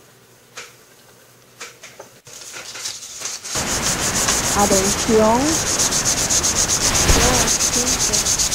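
Shortwave radio reception of a Spanish-language numbers station: static hiss with a rapid, even pulsing comes in about three and a half seconds in, and a voice calls "Atención" about five seconds in. Before it, a few light handling clicks.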